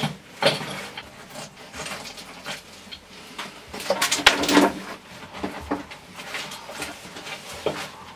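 Loose stones clattering, knocking and scraping as rock is shifted by hand in a narrow cave passage while digging. The knocks come irregularly, with a busier cluster about four seconds in.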